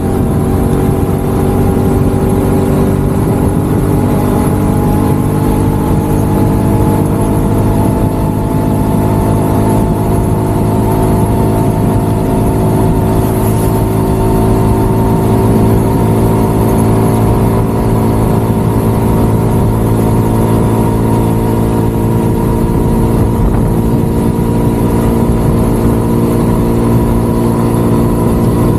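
Motorcycle engine running at a steady cruise, its pitch rising slightly over the first several seconds, with wind rushing over the camera microphone.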